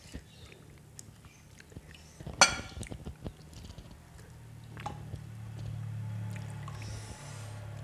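A spoon tapping and scraping against a plate and bowl in scattered light clinks, with one sharper clink a little before halfway. A low steady hum comes in about halfway through.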